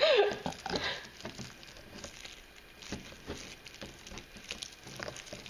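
Faint crinkling and small irregular clicks of gloved hands squeezing a plastic hair-dye colour tube into a plastic developer bottle.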